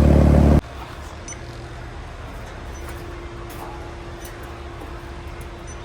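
Outdoor AC condenser unit running loudly with a steady low hum, cut off abruptly about half a second in. After that comes a much quieter background of faint low hum with a few light clicks.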